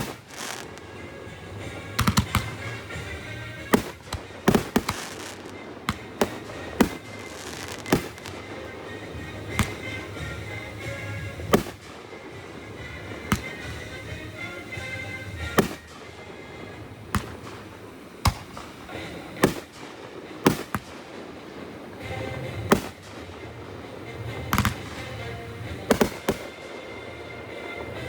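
Fireworks going off: sharp bangs at irregular intervals, roughly one or two a second, some in quick pairs, over music playing in the background.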